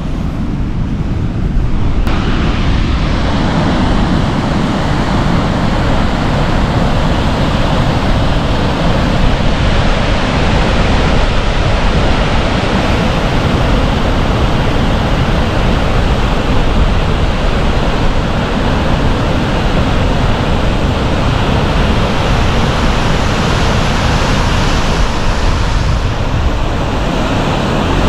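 Waterfall rushing, a loud steady roar of falling water, with wind buffeting the microphone. It fills out in the higher range about two seconds in.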